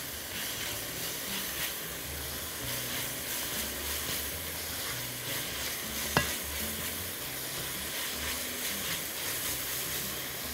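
Chopped onion and celery sizzling in olive oil in a pot while a wooden spoon stirs and scrapes them, softening without browning. One light click about six seconds in.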